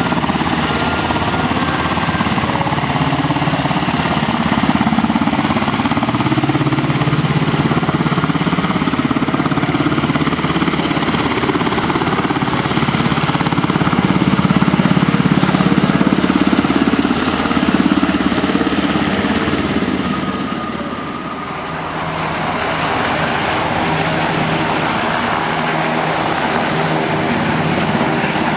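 UH-60J Black Hawk rescue helicopter hovering, its rotor giving a continuous rapid chop over the turbine noise. The sound dips for a moment about three-quarters of the way through, then comes back.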